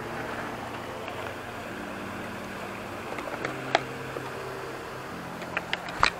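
A steady motor hum whose pitch shifts in steps, with a few sharp knocks of a knife chopping a bait fish on a board: one a little before four seconds in, then a quick cluster near the end.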